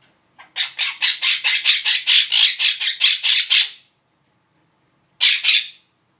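A pet bird squawking: a fast run of harsh calls, about five a second for some three seconds, then a short pair of calls near the end.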